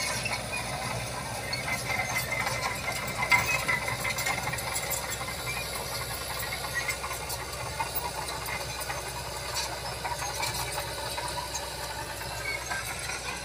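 Bulldozer's diesel engine running steadily, with frequent metallic clanks and rattles from its steel tracks.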